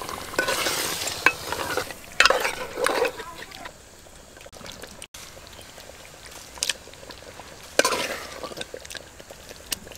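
Thick spice-fried mutton curry sizzling in a hot metal pot while a metal ladle stirs it, scraping and knocking against the pot. It is busiest in the first three seconds, then quieter, with another short burst of stirring near the end.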